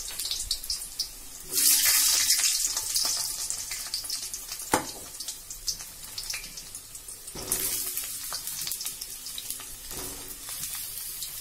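Brinjal pieces going into hot mustard oil in a steel kadai, sizzling and crackling. The sizzle surges loudly about one and a half seconds in and again near eight seconds in as more pieces hit the oil, with a single sharp knock around five seconds in.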